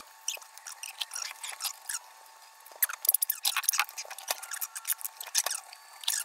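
Scattered small clicks and taps of battered fried fish and fries being handled and set down on ceramic plates, thickest a little past halfway. The sound is thin, with no bass.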